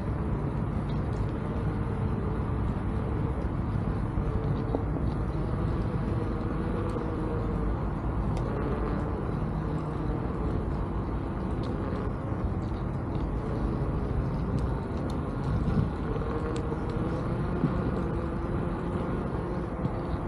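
Electric unicycle ride: steady wind and rolling noise on the microphone, with a faint wavering whine from the Veteran Sherman S's hub motor.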